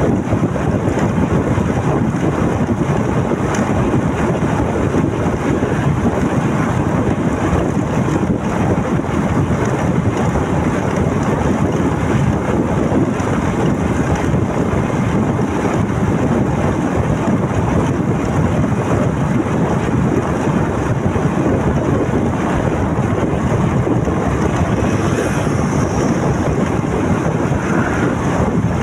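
Steady wind noise buffeting the microphone of a moving motorcycle, mixed with road and engine noise from the ride.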